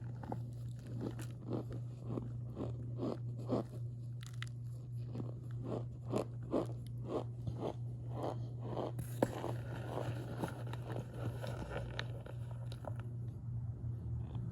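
A person biting and chewing chunks of cornstarch, a squeaky crunch repeating about two to three times a second; about nine seconds in the chewing turns hissier and less regular. A steady low hum runs underneath.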